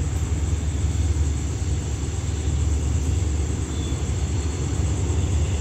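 Steady low rumble of a departing diesel passenger train moving away down the line.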